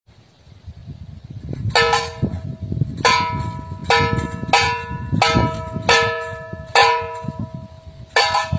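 Bird-scaring device in a rice paddy beating on metal: repeated clangs, each ringing briefly, coming irregularly about once or twice a second with some double hits.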